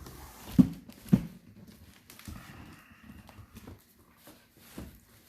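Cardboard box and packing material being handled: two sharp knocks about half a second apart near the start, then rustling and a few lighter bumps.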